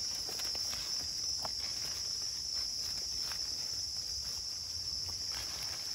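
Steady high-pitched drone of insects in the forest, with a few faint clicks in the leaf litter.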